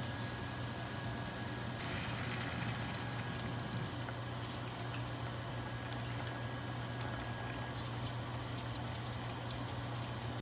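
Kimchi stew cooking in a thin aluminium pot on an electric stovetop: a steady hiss with a low hum, a spoon stirring in the pot and liquid poured in, and a run of small clicks near the end.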